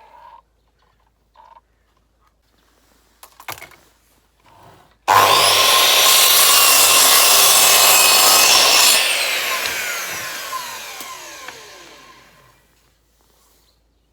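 Electric saw cutting a piece of pallet wood: it starts suddenly about five seconds in and runs loud for about four seconds, then its motor winds down, the pitch falling as it fades over the next few seconds. A few light knocks come before it.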